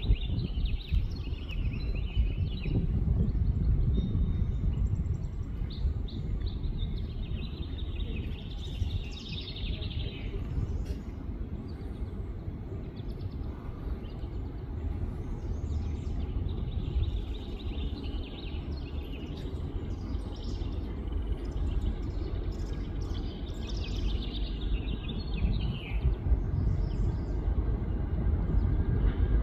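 Birds chirping repeatedly over a constant low rumbling noise. The chirps come in clusters near the start, around eight to ten seconds in, and again in the second half.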